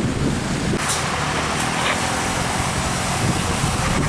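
Heavy diesel truck running past with a steady engine drone and road noise.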